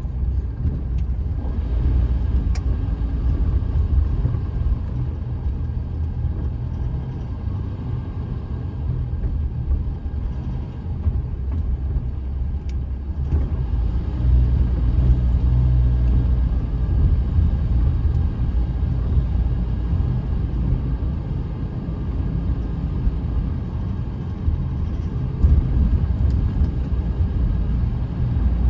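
A car driving on a city street, heard from inside the cabin: a steady low rumble of engine and tyres on the road.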